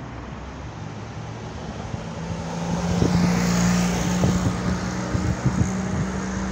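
Street traffic at an intersection: a car engine running steadily, getting louder about three seconds in as cars pass close by, with scattered short knocks.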